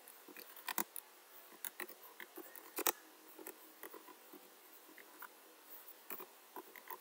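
Computer keyboard being typed on: irregular light key clicks with a few louder strokes among them, as a short message is typed out and sent.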